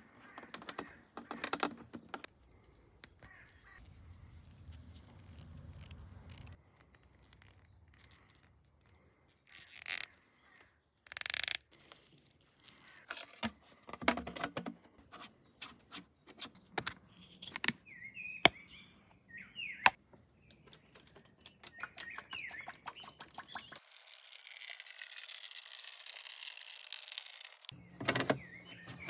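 Scattered clicks and knocks of hands working a plastic water jug, its cap and hose fittings, with a couple of short louder noisy bursts and birds chirping now and then.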